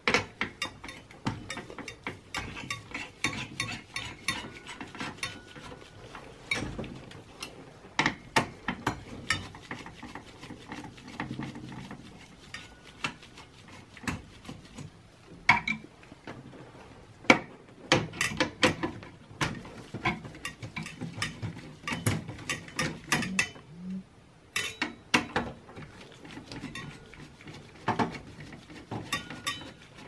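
Phillips screwdriver turning the CPU heatsink screws in a Dell Precision T5500 workstation: a long run of irregular small metal clicks, ticks and scrapes, with louder sharp clicks scattered throughout.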